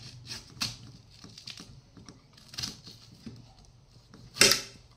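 Kitchen knife slicing through a thin-rinded watermelon on a plate: a series of short crisp clicks and crunches, with one much louder sharp crack near the end.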